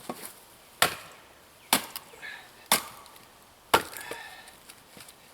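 Axe blows on firewood: four sharp chops about a second apart, each with a short ring, working at stringy wood that does not split cleanly.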